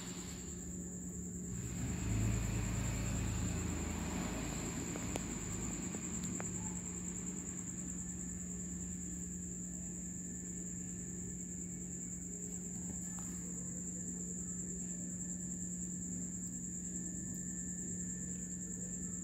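Crickets trilling steadily at a high pitch, over a steady low hum, with a brief low rumble about two seconds in.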